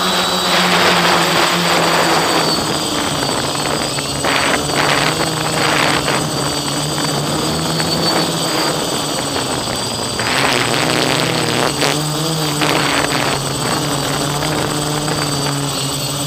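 DJI Flamewheel F450 quadcopter's brushless motors and propellers running in flight, heard from on board: a steady buzzing hum whose pitch wavers as the throttle changes, most clearly from about ten to thirteen seconds in, with several brief bursts of noise.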